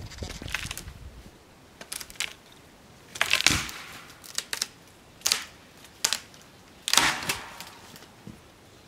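A small tree trunk, wedged between two trees and levered by hand, cracking and snapping as it breaks into firewood lengths: a string of sharp cracks, the loudest about three and a half seconds in and again about seven seconds in.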